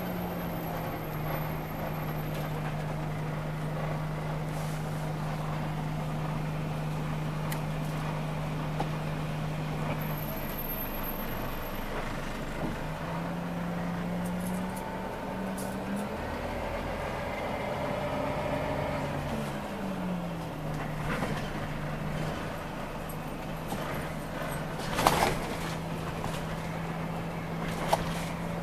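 Scania OmniLink CL94UB city bus heard from inside the passenger cabin while driving: a steady engine drone over road noise, its pitch stepping down and back up a few times as the bus changes speed. A short sharp clatter about 25 seconds in is the loudest moment.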